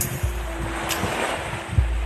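Background music with deep, repeating bass hits and a held tone.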